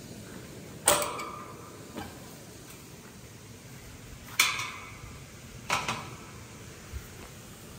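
Three sharp metallic knocks, each with a short ring: about a second in, and twice more between four and six seconds, with a couple of lighter taps between them.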